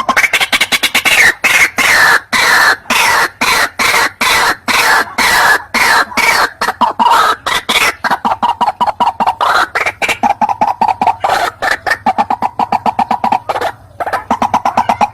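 White-breasted waterhen (ruak-ruak) calling: a loud, fast run of harsh repeated notes that settles in the second half into a quicker, even series pitched a little lower, with a brief break near the end.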